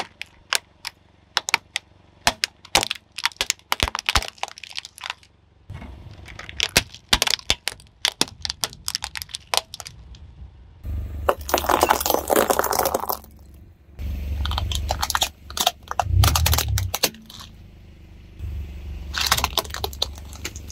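Hard plastic toys cracking and breaking under a car tyre: many separate sharp cracks and snaps over the first half, then longer spells of dense crunching and grinding as the pieces are crushed flat.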